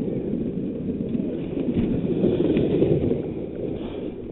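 Wooden toboggan sliding fast over rutted, packed snow, with wind buffeting the microphone: a steady low rushing rumble that swells a little partway through.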